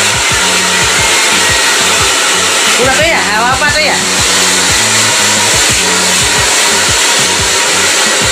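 Handheld hair dryer blowing steadily, drying long wet hair. Background music with a steady beat plays underneath.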